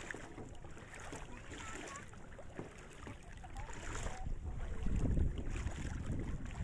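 Wind rumbling on a phone's microphone over the wash of shallow sea water, growing louder about four seconds in.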